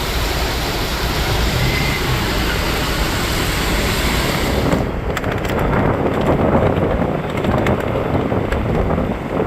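Strong wind buffeting the microphone over a steady rushing noise of stormy weather. About five seconds in, the high hiss drops off suddenly and the low wind rumble carries on.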